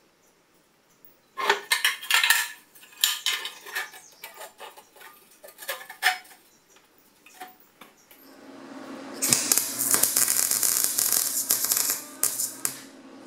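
Metal exhaust pipe and rusty muffler clinking and clattering as they are handled and fitted together. About eight seconds in, a steady hum starts, and a wire-feed welder crackles for several seconds as the exhaust pipe is welded, stopping near the end.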